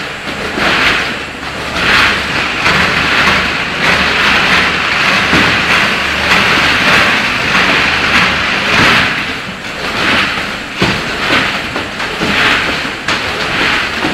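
Meatball packaging line with a multihead weigher above a vertical form-fill-seal bagging machine, running: a loud, continuous mechanical clatter that swells and dips about once a second.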